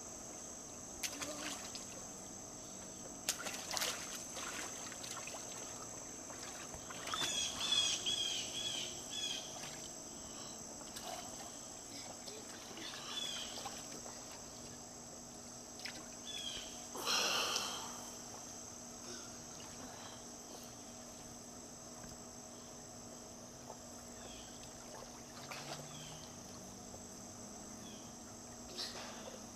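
A steady high insect drone, with a few short bird chirps now and then and light water splashing from a child swimming in a pool.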